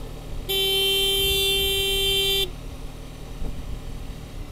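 Vehicle horn honking: one long blast of about two seconds at a single steady pitch. Steady road and motor noise runs under it.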